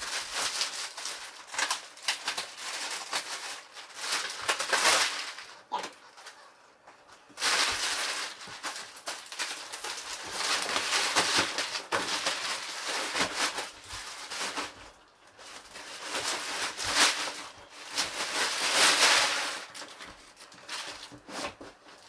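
Clear plastic wrap crinkling and rustling as it is pulled off a new foam mattress, coming and going in spells with short pauses.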